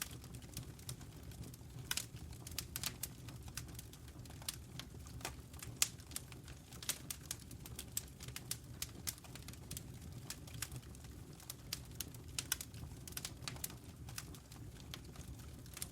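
Wood fire crackling: irregular sharp pops and snaps, many a second and never in a steady rhythm, over a low steady rumble of the burning logs.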